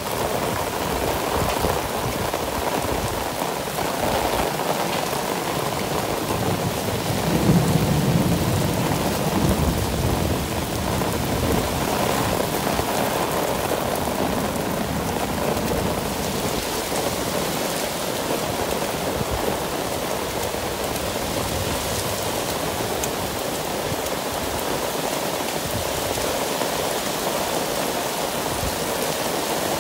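Heavy rain pouring steadily onto a wet paved street, with a low rumble of thunder swelling about seven seconds in and dying away by ten seconds.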